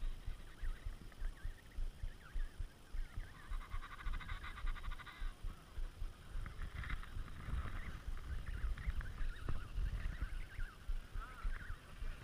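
Emperor penguin colony calling: many overlapping warbling calls of adults and chicks, with one nearer, louder pulsing call about three to five seconds in. Wind rumbles low on the microphone underneath.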